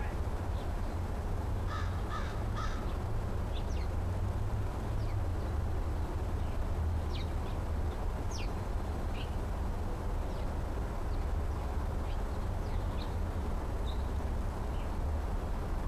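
American crow cawing: three quick caws in a row about two seconds in. Short, thin, high chirps come and go, over a steady low rumble.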